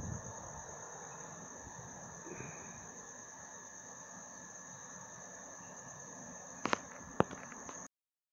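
Night insects, crickets most likely, chirping in a steady high-pitched drone. Two sharp clicks near the end, then the sound cuts off suddenly.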